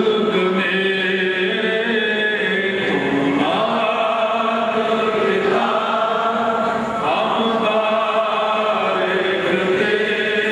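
Sikh devotional chanting by a group of voices, with long held notes that rise and fall slowly and run on without a break.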